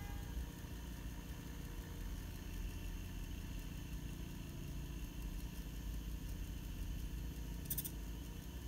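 Permanent-magnet washing machine motor running steadily on about 28 V, switched by a single MOSFET from a hall sensor, with a low steady hum. A short click near the end.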